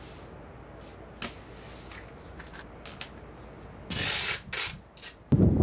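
Packing tape pulled off the roll in two short rips about four seconds in, after a quiet stretch with a light tap. Just before the end, a sudden loud low rumble sets in.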